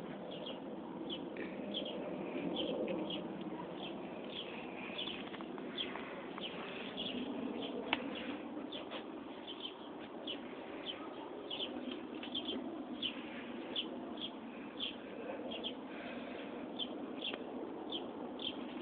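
Small birds chirping over and over in the background, short high chirps one to three a second, over low steady background noise. A single sharp click about eight seconds in.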